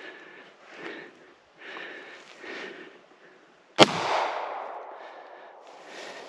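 Footsteps rustling through brush at a walking pace. About four seconds in comes a single loud, sharp crack with a tail that fades over about a second.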